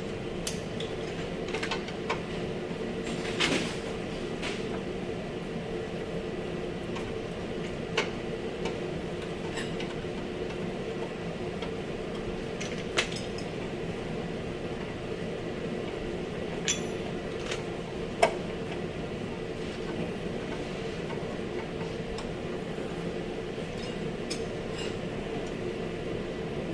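Scattered sharp metallic clinks and taps of tools and metal parts being handled during bodywork, the loudest about eighteen seconds in, over a steady low mechanical hum.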